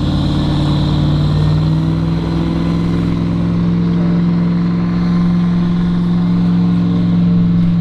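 Tour boat's engine running steadily under way, its pitch stepping up slightly about a second and a half in.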